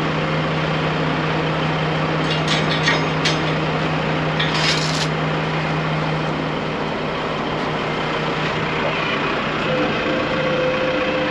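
Heavy diesel engine idling steadily, with a few clicks and a brief hiss about four and a half seconds in. A higher engine tone joins near the end.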